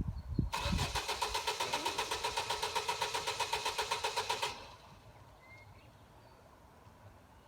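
Car's starter motor cranking the engine with an even pulsing rhythm, about nine beats a second, for about four seconds; the engine does not fire, and the cranking stops abruptly. A car that won't start.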